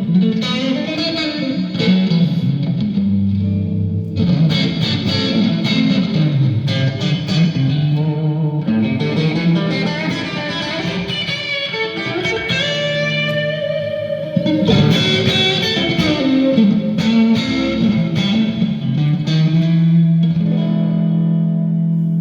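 A rock band playing live, an instrumental introduction led by guitar over a strong bass line. The band eases off about ten seconds in and comes back in full at about fourteen seconds.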